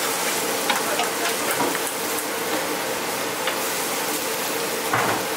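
Chili-flake oil and soy sauce sizzling in a wok, a steady hiss with small crackling pops. About five seconds in, liquid poured from a jug splashes into the pan and gives a louder burst.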